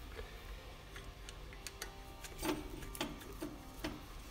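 A few light, scattered clicks and taps of a screwdriver against metal as it is set into a screw of a golf cart engine's magneto stator plate.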